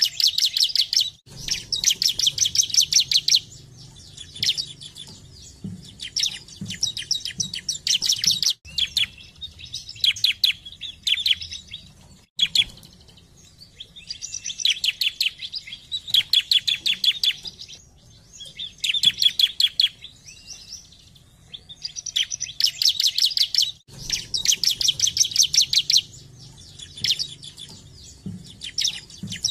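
Bar-winged prinia (ciblek) singing: fast trilled phrases of sharp high notes, each a second or two long, repeated with short pauses.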